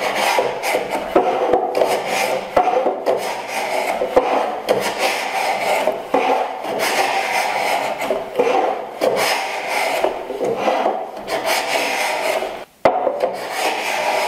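Block plane taking repeated fine shavings off the end of a board clamped in a wooden miter jack, the sole rubbing along the jack's guide faces in a steady run of strokes, with one brief pause near the end.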